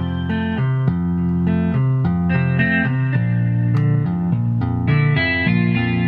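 Ten-string Chapman Stick played through its Stick-Up pickup: notes tapped on the strings, a melody line over a moving bass line.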